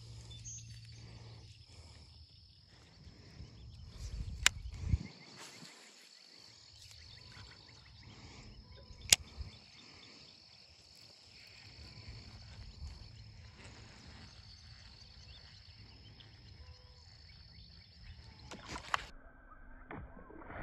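Faint pond-side ambience: a steady high-pitched insect drone over low rumble on the microphone, with two sharp clicks about four and nine seconds in.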